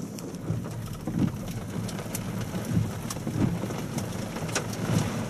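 Heavy thunderstorm rain falling, with scattered sharp taps of hailstones striking over a low, uneven rumble.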